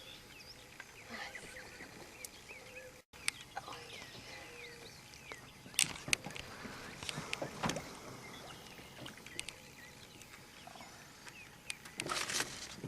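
Quiet open-air background in a small john boat, with scattered sharp knocks and clicks of handling in the boat and faint short chirps, then louder rustling noise near the end.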